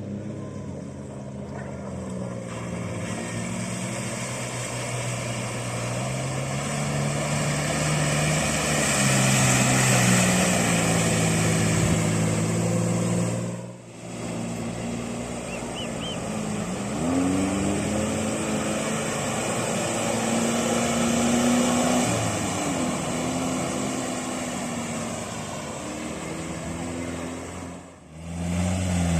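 Off-road 4x4 engine running under load, revving up and down with its pitch rising and falling. The sound breaks off abruptly twice, about halfway through and near the end.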